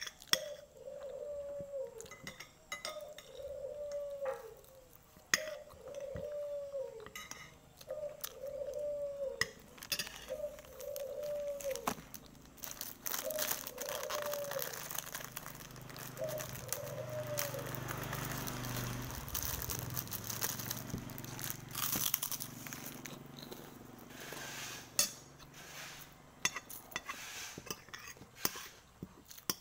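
A metal spoon clinks and scrapes on a glass plate while an animal in the background gives a string of short, rising-and-falling cries, about one every second and a half, that stop about halfway through. In the middle, a plastic food wrapper crinkles as it is torn open.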